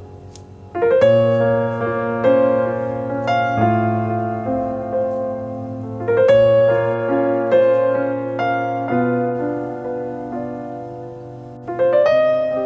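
Background piano music: slow chords, each struck and left to ring and fade before the next, with a new chord every one to three seconds.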